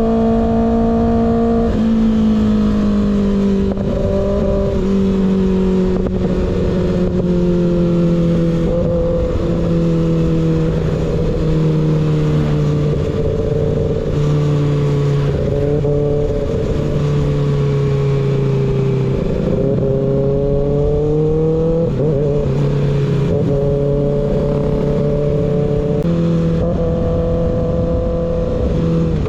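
Kawasaki ZX6R inline-four motorcycle engine running loud through an unbaffled M4 GP19 slip-on exhaust while riding, its pitch stepping down and up several times with throttle and gear changes.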